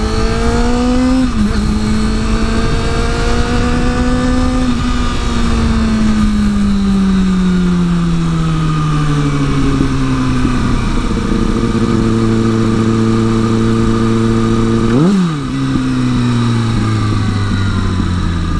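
Kawasaki ZX-6R inline-four sportbike engine pulling away hard, its revs climbing with a quick upshift about a second in. The revs then fall off steadily as the bike rolls off and slows, with one sharp rev blip on a downshift about three-quarters of the way through.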